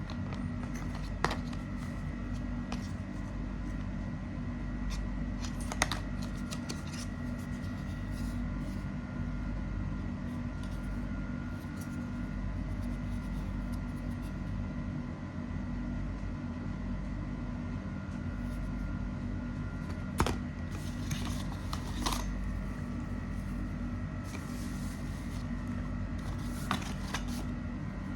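A steady low hum with a few faint steady tones over it, broken every few seconds by sharp clicks and brief rustling, like packaging and a phone being handled close to the microphone.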